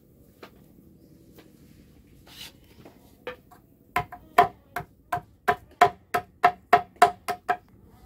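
Knife blade striking a short wooden stick laid on a log, shaping it into a handle. Starting about four seconds in, it makes a run of about a dozen sharp, ringing knocks, roughly three a second, which stop shortly before the end.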